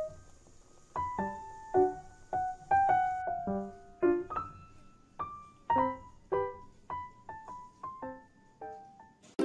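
Background piano music: a slow melody of single struck notes, each ringing and fading before the next.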